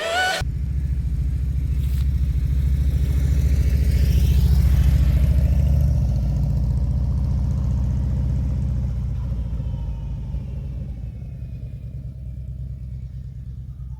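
A car's low engine and road rumble, building over the first few seconds and then gradually easing off.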